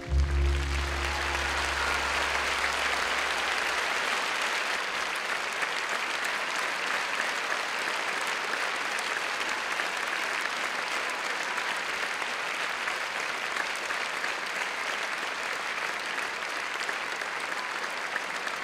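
Large theatre audience applauding steadily as a ballet duet's music ends. The music's last deep note sounds loudest just at the start and dies away over the first few seconds under the clapping.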